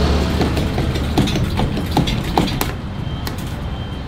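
Claw machine running: a low motor hum, then a run of clicks and knocks as the claw works among the plastic laundry-pod boxes, going quieter after nearly three seconds.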